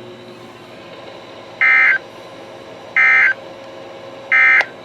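NOAA Weather Radio SAME end-of-message data bursts: three short, identical buzzing digital bursts about a second apart, marking the end of a broadcast alert message. A steady radio hiss lies underneath.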